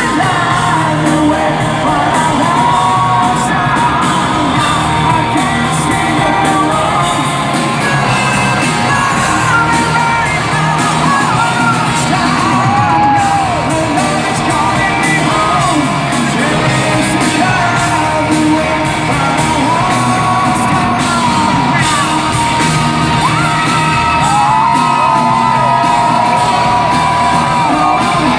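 Hard rock band playing live, a male lead singer singing over electric guitars, bass and drums, heard from within the crowd.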